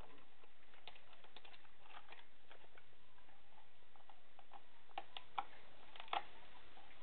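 Faint, scattered clicks and scrapes of an animal's feet on tree bark as it clambers on the trunk, with a few sharper clicks about five and six seconds in.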